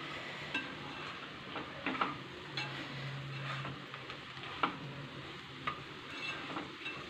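A slotted spatula stirring bathua greens and potato in a nonstick kadai over a low flame, with a faint steady sizzle and a few scattered taps and scrapes of the spatula against the pan.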